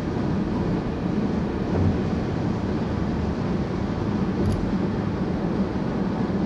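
Steady road noise of a car cruising on a highway, heard from inside the cabin: an even low rumble of tyres and engine.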